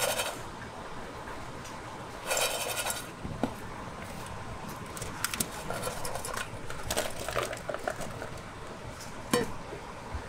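Utensils clinking, tapping and scraping against dishes and containers as a portion of food is made up, with a short rattling scrape a couple of seconds in and a sharp click near the end.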